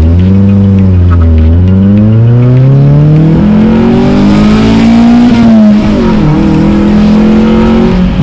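Car engine with VTEC revving while being driven, its pitch climbing and falling with the throttle, with a long climb and then a sudden drop about six seconds in, as at a gear change.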